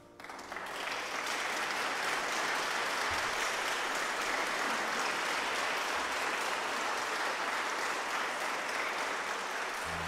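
Audience applauding, the clapping swelling over the first second and then holding steady.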